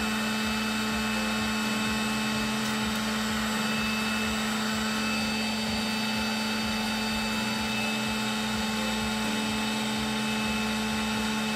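Steady electric hum with a constant low tone, from the air pump that fluidizes the powder paint in the dipping containers.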